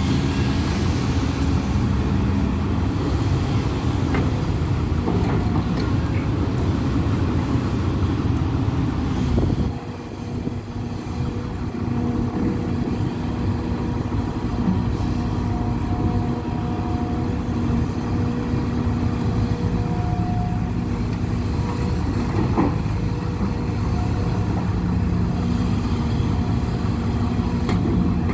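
Diesel engine of a Hidromek HMK230 crawler excavator running steadily as it dumps soil into a dump truck and swings back to dig, with a few short knocks from the work. The engine note dips briefly about a third of the way through.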